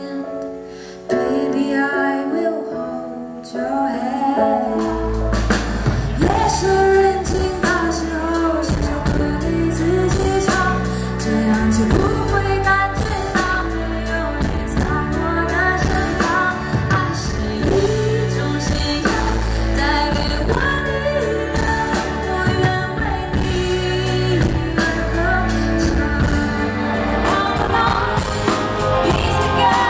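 Live pop band: a female voice sings over a Roland FP-4 digital piano, then bass guitar and drums come in about five seconds in and the full band plays on.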